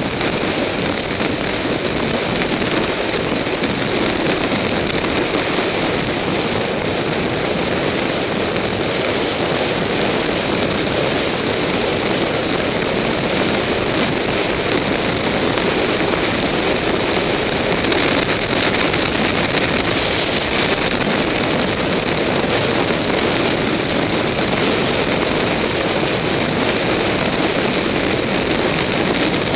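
Suzuki Bandit motorcycle cruising at steady highway speed, heard from a bike-mounted camera: a constant rush of wind, engine and road noise that does not change.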